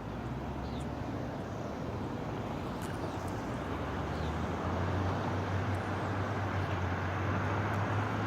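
Steady vehicle noise with a low engine hum, a little louder from about halfway through.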